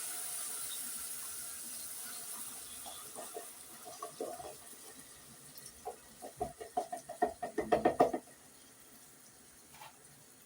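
Red beans in their liquid poured into a pot, splashing and glugging in quick bursts that grow heavier and stop abruptly about eight seconds in, over a sizzling hiss from the pot that fades in the first few seconds.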